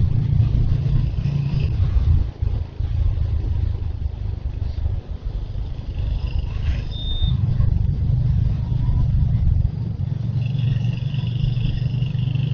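Royal Enfield Hunter 350's 349 cc single-cylinder engine running under way, a steady low rumble that eases off briefly around two seconds and again around five seconds before picking back up about seven seconds in.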